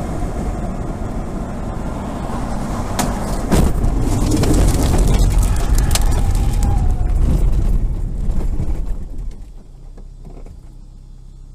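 Car driving, heard through a dashcam: loud steady road noise with a few sharp knocks about three and six seconds in, dropping away after about nine seconds.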